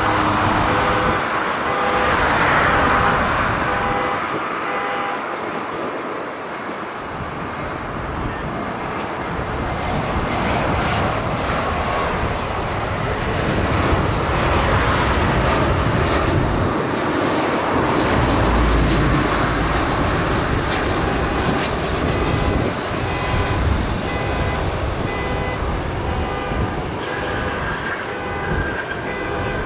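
Jet airliner engines running: a loud, steady rushing noise with whining tones that shift in pitch.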